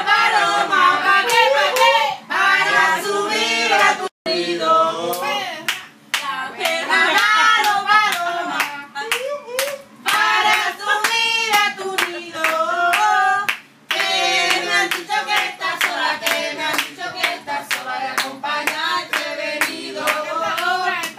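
People singing together while hands clap along in a steady rhythm, about two to three claps a second.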